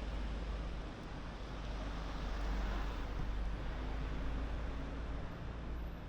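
City street traffic noise: low rumble with a vehicle passing, swelling louder about two to three seconds in and easing off again.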